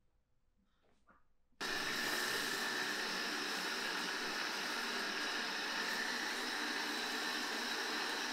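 Electric hair dryer switched on about a second and a half in, running at a steady blow.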